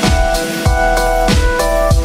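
Background music with a steady beat: electronic-style track with sustained chords and a kick drum hitting about one and a half times a second.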